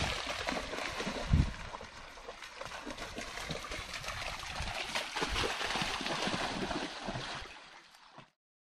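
Water splashing and trickling as a dog runs through a shallow stream, with one loud thump about a second and a half in. The sound fades out near the end.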